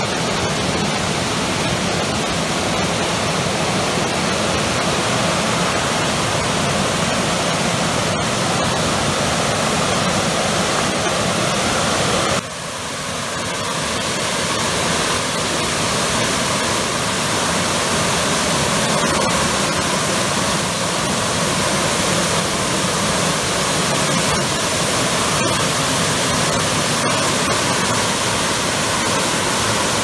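Water released from a dam outlet, a high-pressure jet crashing into a gorge pool with a steady, loud rushing noise. About twelve seconds in the sound shifts abruptly in tone, with a brief drop in level.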